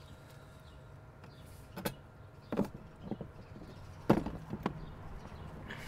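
A handful of sharp clicks and knocks from glass apparatus and its fittings being handled with gloved hands, the loudest about four seconds in, over a faint steady hum.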